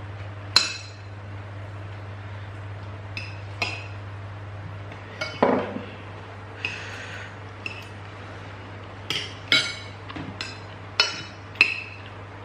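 Spoons and cutlery clinking against plates and dishes in irregular clinks that ring briefly, with a duller knock about halfway through, over a steady low hum.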